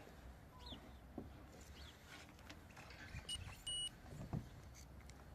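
Faint small clicks and handling noises, with two short electronic beeps a little after three seconds in: a very brief one, then a clear one lasting about a quarter second.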